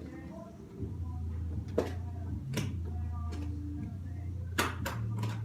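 About five sharp clicks and knocks, spread across a few seconds, over a steady low hum.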